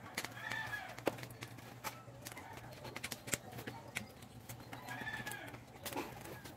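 Quiet background with scattered faint clicks and a low steady hum, and two brief arching animal calls, about half a second in and again about five seconds in.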